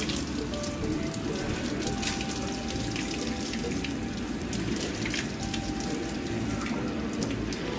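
Water churning and splashing steadily in a stone hot tub heaped with soap foam, a continuous rushing, bubbling wash.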